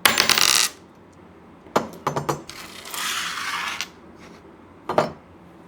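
Metal clinks and sharp clicks as a metal camera cage is taken off the camera body, with two short stretches of scraping and rustling handling noise.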